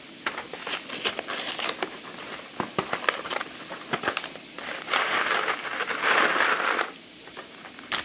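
Cardboard mac and cheese box and its packets being opened and handled: crinkling and tearing with many short clicks, then a louder rustle for about two seconds past the middle.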